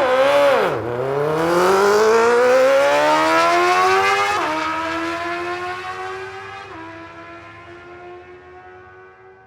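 Racing engine blipped once, then accelerating hard with a long rising pitch. It shifts up twice, about four and a half seconds in and again near seven seconds, each shift a sudden drop in pitch, while the sound steadily fades as the vehicle pulls away.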